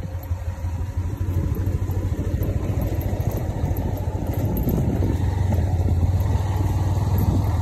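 A vehicle engine running steadily as it travels along a dirt track, heard as a constant low rumble.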